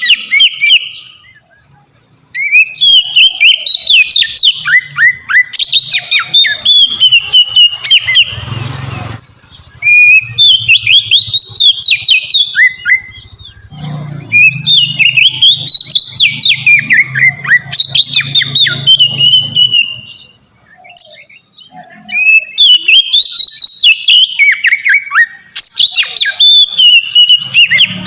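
Oriental magpie-robin (kacer) singing a loud, varied song of quick rising and falling whistled notes, in several bouts separated by short pauses.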